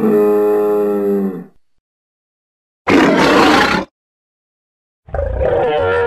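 Creature sound effects: a pitched, horn-like bellow ends about a second and a half in, then a short harsh roar comes about three seconds in, and a deeper rumbling roar starts about five seconds in. Silent gaps separate the three calls.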